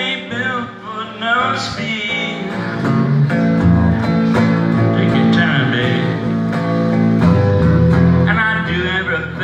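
Electric guitar played live: a continuous run of notes, with bent, sliding notes near the start and again near the end.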